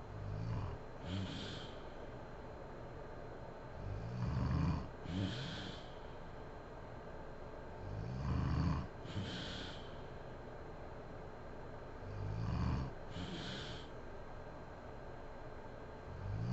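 A woman snoring in her sleep. Each breath brings a low snore followed by a short hiss, repeating about every four seconds.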